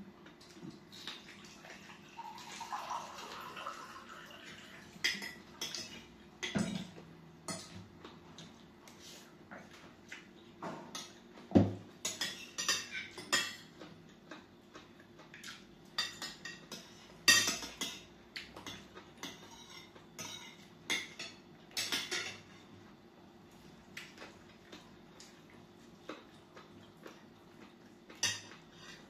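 Spoons and forks clinking and scraping against glass and ceramic plates during a meal, in scattered sharp clinks, a few much louder than the rest. About two seconds in, water is poured from a jug into a glass, rising in pitch as the glass fills.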